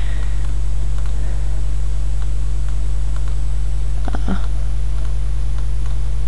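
Steady low electrical hum with a faint hiss, the background noise of a desktop microphone recording, with one short faint click about four seconds in.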